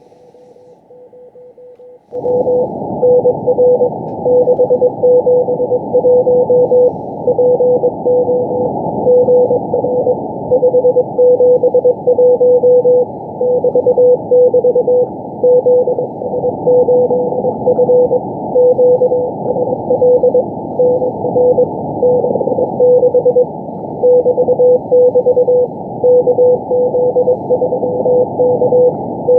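Shortwave CW Morse code from the Israeli Navy station 4XZ on 4331 kHz, received on a software-defined radio: a single beep tone keyed on and off in irregular groups over band hiss. About two seconds in, the hiss and tone jump up sharply in level. The station is keying coded groups of letters and numbers rather than its call.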